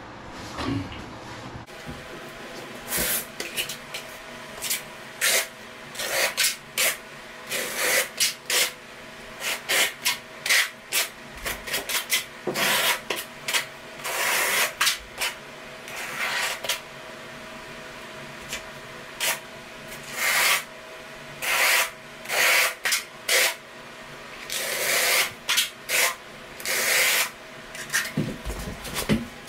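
Notched trowel scraping and combing thinset mortar across the floor in quick, irregular strokes, some short and some about a second long. The strokes start about two seconds in.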